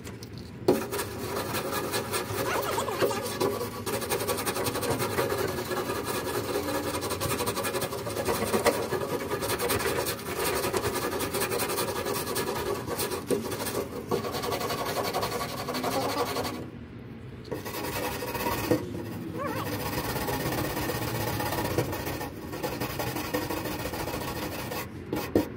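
Hand scrapers rasping and scraping over the bare ribbed sheet-metal floor of a van, stripping off old adhesive residue, in steady continuous strokes with a short pause about seventeen seconds in.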